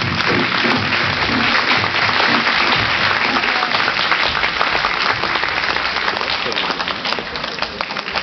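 Audience applauding, many hands clapping together, easing off slightly near the end.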